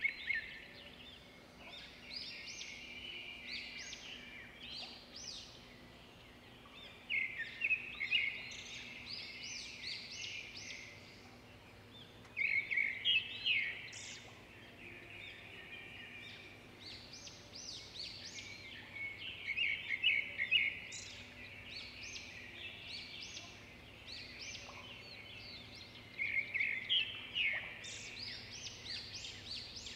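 Songbirds singing: a loud, fast trilled phrase comes about every six to seven seconds, with scattered chirps between, over a faint steady hum.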